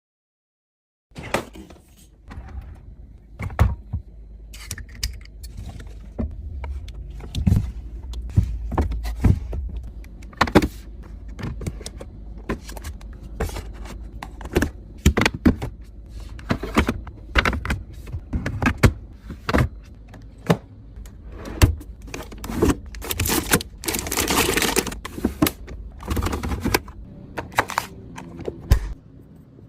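Containers and packaging being handled and set down while restocking a fridge: a run of irregular clicks, knocks and clinks, with a longer rustling, hissing stretch about three quarters of the way through.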